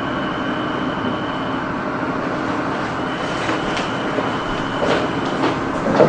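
A steady rumbling noise with a faint, thin high tone running through it.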